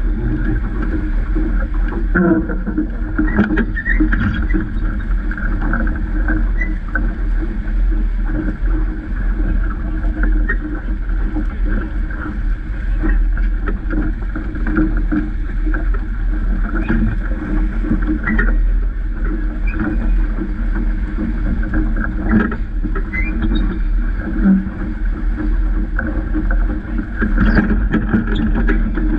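Water rushing and splashing along the hull of a Vaucluse Junior sailing dinghy under way, with wind rumbling steadily on the microphone and small knocks and slaps from the boat throughout.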